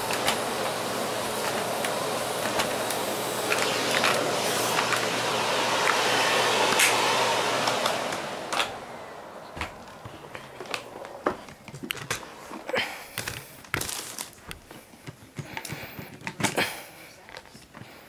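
Miele S6 canister vacuum cleaner running steadily with scattered ticks, then switched off about eight seconds in and winding down. A series of sharp clicks and knocks follows.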